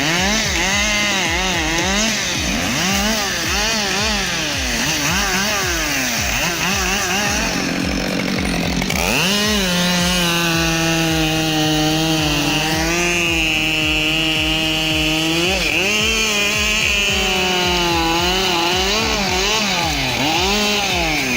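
Chainsaw engine running under load as it cuts wood, its pitch repeatedly dipping and recovering as the chain bites; about eight seconds in it sags and then revs up sharply before settling into a steadier high pitch.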